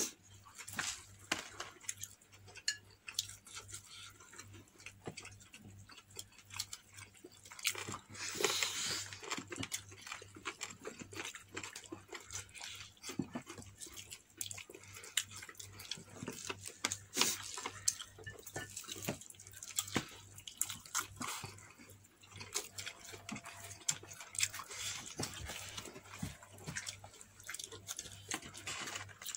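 Close-up eating sounds from crispy fried chicken being torn apart by hand and chewed: irregular small crackles, crunches and mouth smacks, with a denser burst of crackling about eight seconds in. A faint steady low hum lies underneath.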